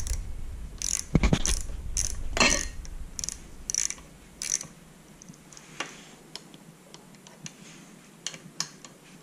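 Hand socket ratchet clicking as a bolt is tightened, in quick strokes at first, then thinning to occasional single clicks after about five seconds.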